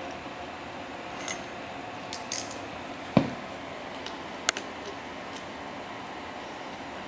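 Metal tools and parts clinking against a windshield wiper motor and linkage assembly as the crank arm is lined up on a pin and fitted. Scattered light clicks, a dull knock about three seconds in and a sharp click about a second later.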